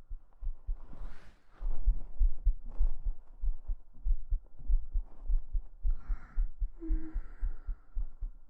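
A person's heartbeat picked up with the microphone held against the chest: a steady run of evenly spaced low thumps. A brief louder noise rises over the beats about a second in.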